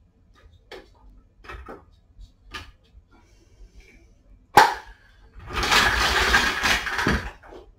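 A few light knocks of wooden blocks being set on a steel motorcycle lift jack, then one sharp knock. The jack is then pushed across a concrete floor for about two seconds, its wheels and frame scraping and rattling.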